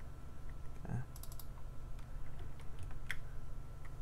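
Computer keyboard and mouse clicks: a quick run of about four taps just after a second in and a single click about three seconds in, with a soft low thump near the first run, over a steady low hum.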